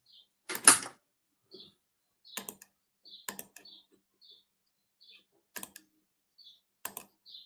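Scattered computer keyboard and mouse clicks picked up over a call microphone, with one louder knock about a second in.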